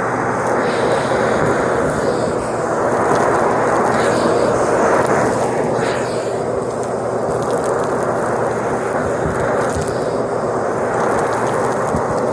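Vacuum cleaner running steadily, with faint crackling as it picks up crunchy debris.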